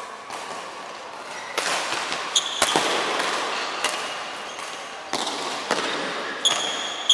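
Badminton rackets striking the shuttlecock in a doubles rally, a string of sharp cracks roughly one a second, with short shoe squeaks on the wooden court twice.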